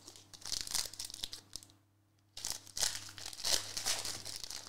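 Foil wrapper of a Panini Prizm soccer card pack crinkling as it is torn open by hand. It comes in two bouts with a short pause between.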